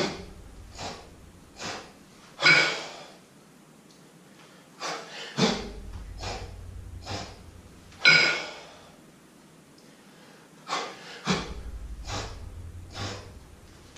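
A man breathing hard while jerking two kettlebells overhead: a run of short, sharp puffs through the mouth, with a louder, forceful exhale about every six seconds as each rep is driven up.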